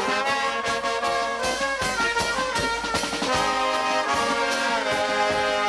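Marching brass band playing, with trombones carrying the tune over a steady beat on bass drum and drums.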